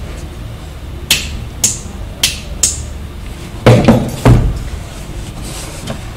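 Handling knocks on a workbench: four sharp clicks, then three heavier knocks a little after halfway, the loudest sounds here, over a steady low hum.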